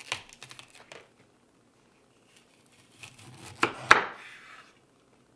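Knife cutting through the stem and leaves of a raw cauliflower on a wooden cutting board: a run of crisp crackles and snaps in the first second, then another stretch of crackling from about three seconds in, with two sharp cracks near four seconds.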